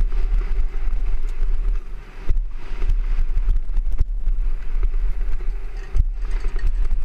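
Downhill mountain bike ridden fast over a rough dirt-and-gravel trail, heard through a helmet camera: wind buffeting the microphone as a steady low rumble, with tyres on loose dirt and the bike rattling and knocking over bumps. Sharp knocks from hard landings stand out about two and six seconds in.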